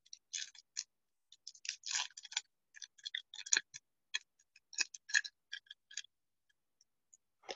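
Trading cards being handled, giving soft, irregular clicks and rustles as the cards slide and tap against each other, dying away about six seconds in, with one last click near the end.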